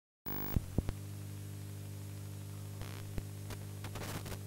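Old-TV or VHS-style glitch sound effect: a steady electrical hum with static hiss that switches on abruptly, broken by a few sharp pops near the start and crackling bursts near the end.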